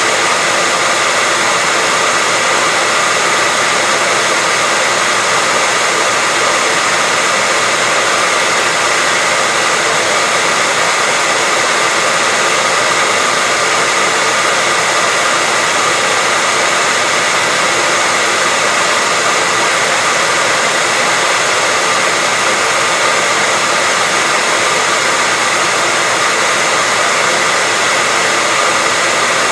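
Hair dryer running continuously at a constant speed: a steady whoosh of blown air with a faint whine from the motor, unchanging throughout.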